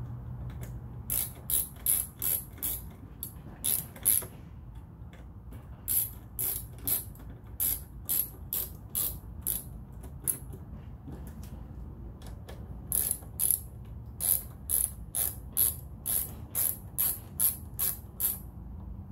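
Ratcheting hand tool clicking in three runs of quick clicks, about three a second, with short pauses between, as screws are driven in.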